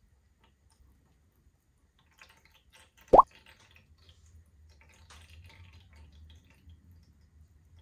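A single short cartoon-style "bloop" sound effect about three seconds in, a quick upward sweep in pitch and by far the loudest sound here. Faint scattered handling noises follow over a low steady hum.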